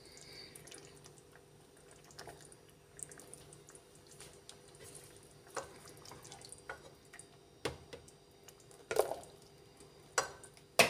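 A slotted spoon stirring a thick, wet pea and fenugreek curry in a kadhai: soft wet slopping with a few separate knocks and scrapes of the spoon against the pan, more often and sharper in the second half.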